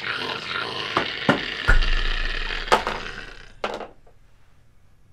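A crash and tumble: several knocks and thumps over a rushing noise, the heaviest a little under two seconds in with a low rumble under it, dying away after about four seconds.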